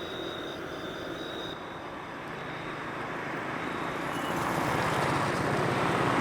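Low-flying aircraft passing, its engine noise growing steadily louder toward the end.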